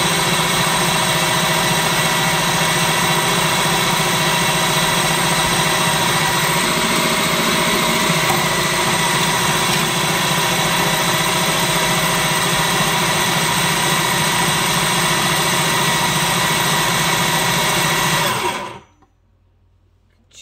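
Electric food processor running steadily, chopping boneless chicken mixture for kofta into a fine mince, then switched off near the end, the motor sound dying away within half a second.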